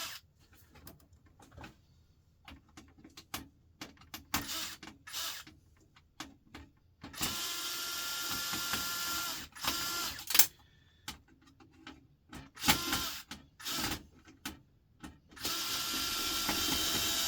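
Cordless drill-driver running in bursts of a few seconds with a steady whine, undoing screws, the longest runs near the middle and at the end. Clicks and knocks of small metal parts being handled come in between.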